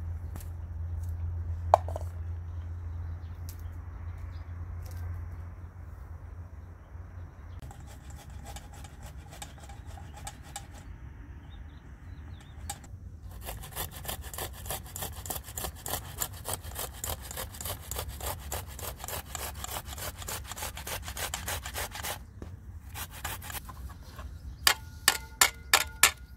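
Tomatoes being grated on a metal grater: quick, rhythmic rasping strokes, about four or five a second, for some ten seconds in the second half, followed near the end by about five sharp knocks. The first half is a low, steady rumble with a few scattered clicks.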